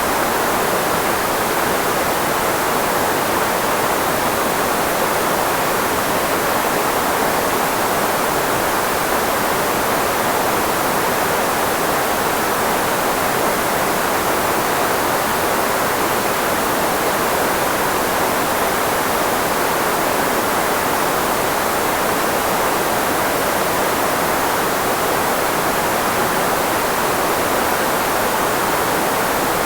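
Steady synthetic noise, filtered white noise shaped to mask the frequencies of the human voice, with the most energy in the middle range, unchanging throughout.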